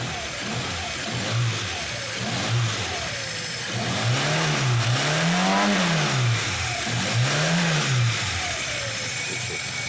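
Four-cylinder car engine running with compression gauges fitted to its cylinders, revved up and down in about five blips, the highest and longest about halfway through.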